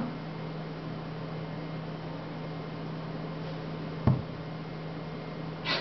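Steady low hum with an even hiss, room tone picked up by a computer's built-in microphone, broken once about four seconds in by a single sharp thump.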